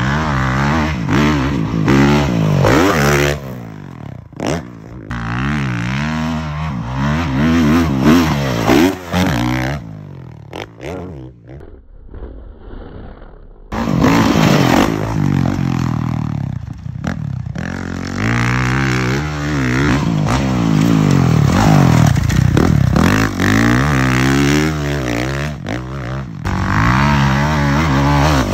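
Dirt bike engine revving up and down as it is ridden, its pitch rising and falling over and over. The engine sound drops away for a few seconds about halfway through, then comes back.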